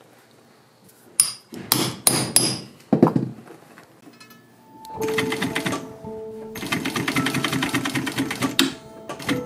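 About five sharp hammer blows on a metal hand tool held to a leather strap. Then an industrial sewing machine stitches through leather and canvas in two runs, a short one about five seconds in and a longer one near the end, over steady background music.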